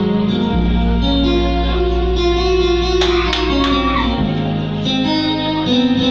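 Guitar-led instrumental music playing steadily, with a deep held bass note for most of it.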